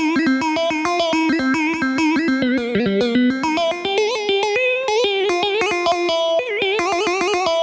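Korg Pa-series arranger keyboard played live with an electric-guitar-like lead voice: fast melodic runs with bent notes over a steady rhythmic accompaniment.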